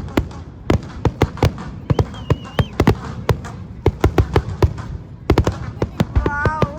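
Fireworks exploding: many sharp bangs and cracks in quick, irregular succession, several a second, at times almost overlapping.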